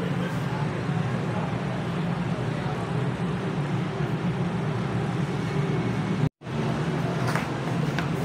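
Steady rumble of road traffic, with a brief complete dropout about six seconds in. Near the end there are a few light clicks as cardboard packaging is handled.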